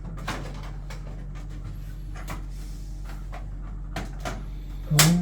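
Boiler parts being handled and refitted: scattered light clicks and knocks over a steady low hum, with one louder knock near the end.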